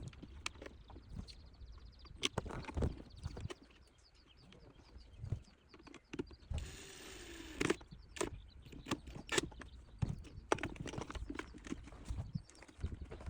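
Scattered clicks, taps and knocks of tools and plastic parts being handled while car interior parts are refitted, with a short rasping noise about seven seconds in.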